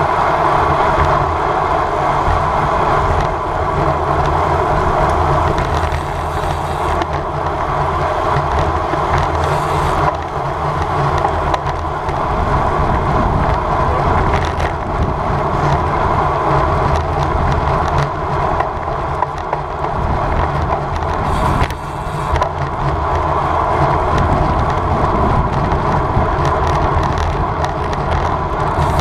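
Road bike rolling at race speed: a steady rush of wind over the microphone with a low rumble of tyres on tarmac.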